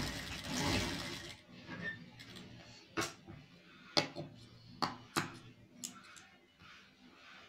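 Sewing machine running a short stretch of stitching, stopping about a second and a half in. Then a few sharp, separate clicks: scissors snipping the threads.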